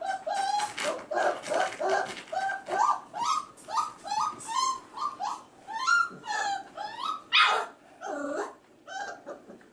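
Five-and-a-half-week-old F1b Goldendoodle puppies crying: a rapid run of short, high yelps and whines, about two a second, thinning out near the end.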